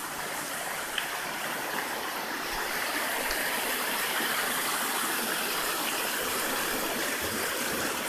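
Mountain stream running and splashing over rocks, a steady rushing noise that grows a little louder over the first few seconds.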